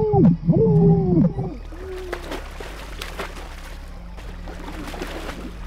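Muffled, drawn-out screams of a person held face-down under pool water: two loud cries in the first second and a half, then weaker ones. Water splashes and churns throughout.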